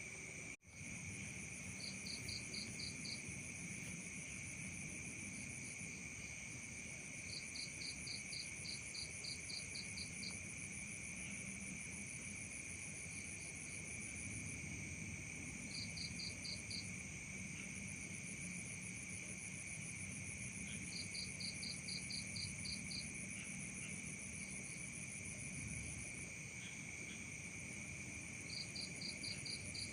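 Night chorus of crickets and other insects: several steady high-pitched trills run on together. Every few seconds a short burst of rapid chirps, five to ten pulses, sounds over them. The sound cuts out briefly just under a second in.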